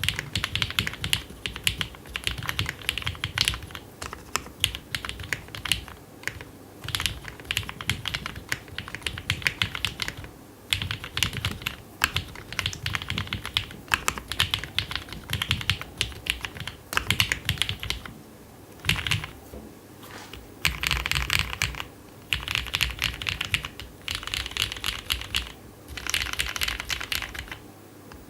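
Typing on a custom 60% mechanical keyboard with lubed Cherry MX Black Hyperglide linear switches, a polycarbonate plate, a silicone-filled Tofu60 case and Domikey keycaps: fast runs of keystrokes broken by short pauses.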